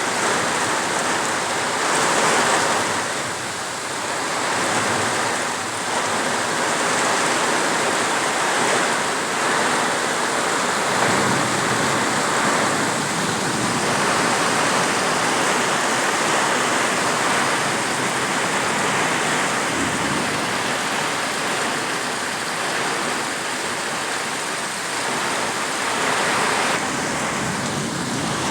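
Steady downpour of rain in a thunderstorm, a continuous even hiss that swells and eases gently.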